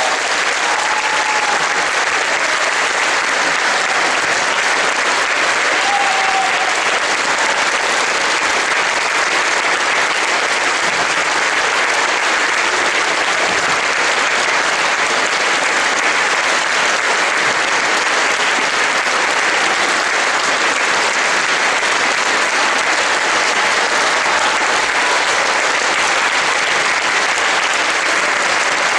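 Concert audience applauding, a dense, even clapping at a steady level throughout.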